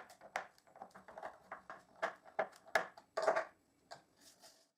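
Scattered light clicks and knocks of wood and tools being handled, with a short cluster of louder knocks about three seconds in.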